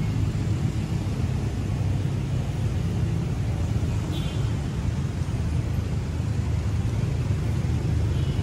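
Steady rumble of street traffic, motorcycles and cars passing on a busy road, with two brief high tones, about four seconds in and again near the end.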